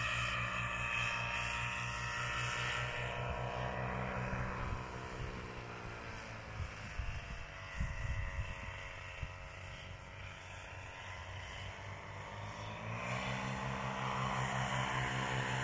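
Powered paraglider's engine and propeller droning steadily overhead. Its pitch sinks and it fades through the middle, then rises in pitch and grows louder again near the end as it comes back toward the listener.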